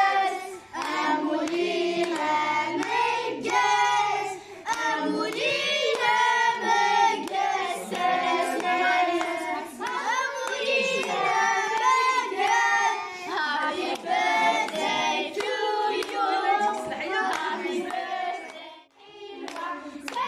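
A group of voices, women and children, singing a birthday song together over lit birthday candles, with hands clapping along.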